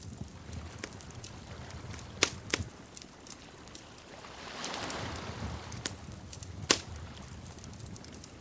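Wood fire crackling: sharp pops about two seconds in and a loudest one near the end, over a low steady rumble, with a soft rushing swell in the middle.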